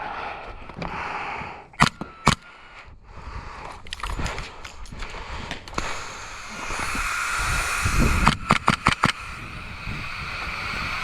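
Air-powered skirmish guns firing: two single shots about half a second apart near two seconds in, then a quick string of about six shots around eight seconds in. A steady hiss sits underneath from about six seconds in.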